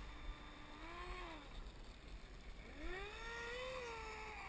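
Motor of a radio-controlled model T-45 jet whining as the throttle is blipped: a short rise and fall in pitch about a second in, then a bigger run-up a few seconds later that holds briefly and winds back down.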